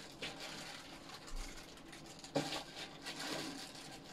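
Faint rustling and small clicks of hands handling a foam-lined aluminium case, with one sharper knock about two and a half seconds in.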